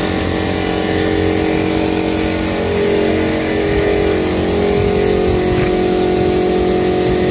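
Paint-spraying rig running steadily for a metal fence job: a constant motor hum with a hiss over it.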